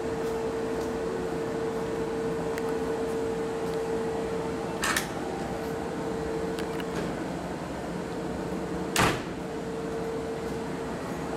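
A stationary Kintetsu 9000 series electric train idling at the platform, its onboard equipment giving a steady hum with one held tone. Two short sharp clicks or knocks cut in, about five and nine seconds in, the second louder.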